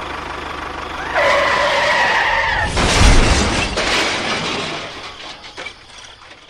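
A high, wavering screech like skidding tyres for about a second and a half, then a loud crash about three seconds in that slowly fades away.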